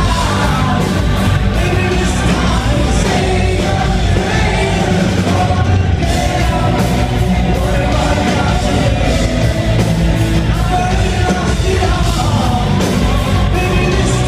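Live hard-rock band playing loudly with lead vocals, heard from within the audience in a concert hall.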